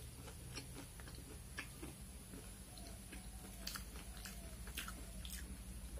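A person chewing a crispy fried mung dal pakora: faint, irregular crunches and mouth clicks.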